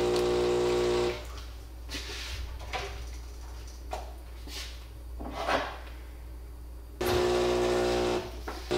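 Automatic espresso machine making a coffee: its pump hums loudly and steadily and cuts off about a second in, followed by quieter irregular whooshes and clicks. The hum starts again abruptly about seven seconds in, stops briefly, and resumes near the end.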